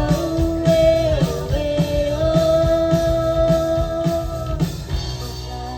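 Live rock cover band playing: a long held note over a steady kick-drum beat about two beats a second. The drums drop out about four and a half seconds in and the music gets quieter.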